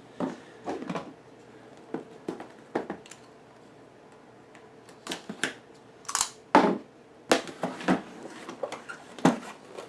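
Cardboard box being handled and opened: a knife slitting the tape seal, then the box turned over and its flaps pulled open. Scattered clicks, scrapes and rustles of cardboard, loudest in the second half.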